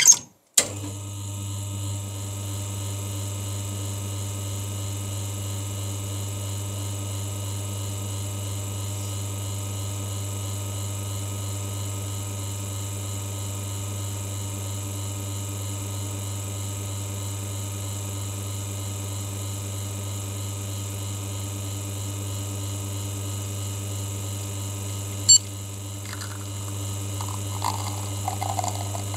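Lelit Bianca espresso machine's pump starting with a click and then running with a steady hum while a shot is pulled. A sharp click comes about 25 seconds in, and near the end espresso trickles into the glass.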